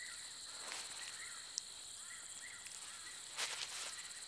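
Natural ambience: a steady high-pitched insect drone with short chirps repeating about twice a second. Two soft rustles come over it, a faint one just under a second in and a louder one about three and a half seconds in.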